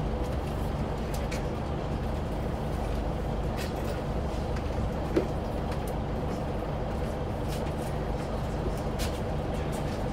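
Scania L94UB bus's rear-mounted diesel engine running steadily, heard from inside the saloon as an even low rumble with a steady hum. There are scattered light clicks and one sharp click about five seconds in.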